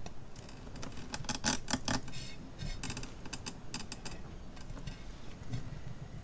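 A run of quick, sharp clicks and taps in several clusters over about three seconds as the wet, paint-covered tile is handled and set on the spinner, then quieter low handling noise as the spin begins.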